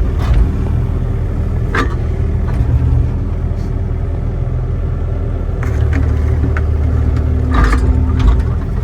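John Deere 35D compact excavator's diesel engine running steadily, with a few short clanks scattered through.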